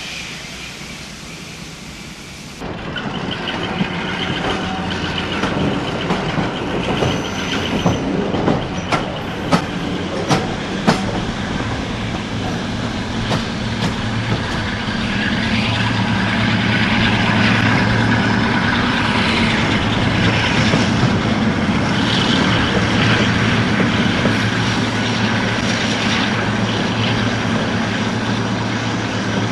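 A train running on the rails: after a quieter opening the sound jumps up suddenly, wheels click sharply over rail joints a handful of times, and then a steady low engine drone builds and holds.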